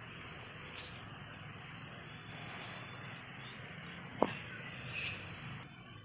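A rapid, high-pitched chirping trill lasting about two seconds over a steady background of city noise, followed about four seconds in by a sharp click with a quick falling whistle. No low, booming coucal call is heard.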